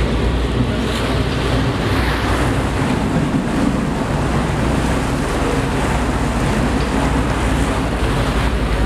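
Passenger boat under way: a steady low engine rumble under the rushing, splashing churn of its wake along the hull, with wind on the microphone.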